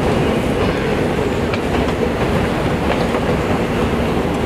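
Subway train rumbling through an underground station: a loud, steady rumble with a faint hum and a few short clicks.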